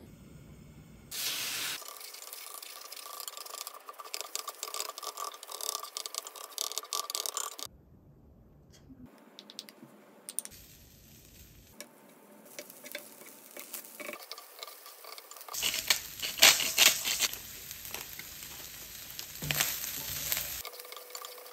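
Egg fried rice sizzling in a hot cast-iron frying pan, heard in several short takes, with wooden spatulas scraping and stirring the rice. The stirring clatter is loudest about sixteen seconds in.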